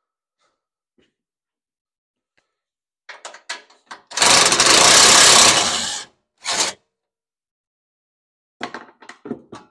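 Cordless DeWalt impact driver hammering on a bolt for about two seconds, then a brief second burst. Light clicks and clatter of metal parts and the tool being handled before and after.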